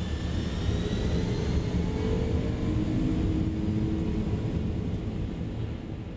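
Boeing 747SP's jet engines at takeoff power, heard from inside the cabin during the takeoff roll: a loud, steady rumble with a faint whine rising slowly in pitch.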